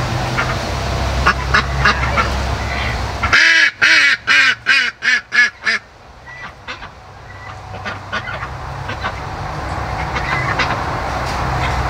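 A chicken squawking loudly, about eight sharp calls in quick succession at roughly three a second, the alarm squawks of a bird being chased back into its pen. A low rumble with scattered rustling runs before and after the squawks.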